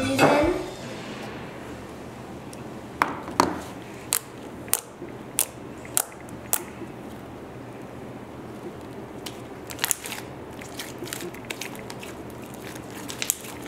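Hands squeezing, poking and stretching a soft homemade glue-and-borax slime, with sharp wet pops and clicks as fingers press in and pull free. A run of pops comes about twice a second in the first half, and scattered ones follow near the end.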